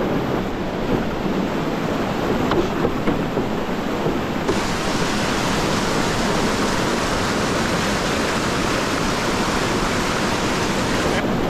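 Steady rush of river whitewater churning over a low weir ledge, heard up close from a raft running through it.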